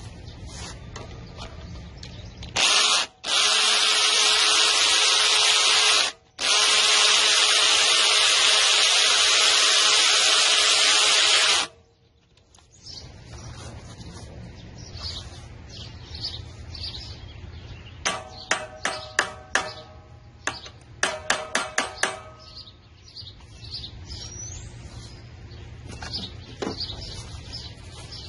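Cordless drill spinning a socket on a puller's forcing screw to draw the hydro drive pulley off the mower engine's crankshaft: one long run of about nine seconds with two brief stops near the start, then two short bursts of rapid clicking later on.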